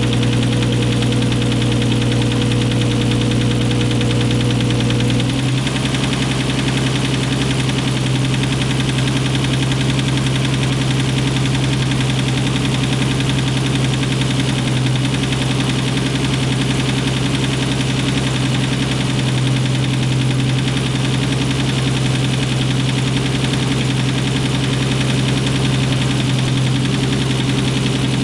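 Nissan RB26 twin-turbo straight-six running steadily with a loud clacking, which the owner wonders may be a spun bearing, piston slap or loud injectors.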